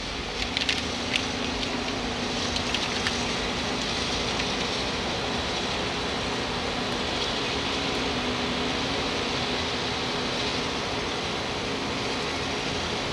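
A steady mechanical hum with a low held tone, with a few light clicks in the first few seconds from gloved hands handling the putty stick and its wrapper.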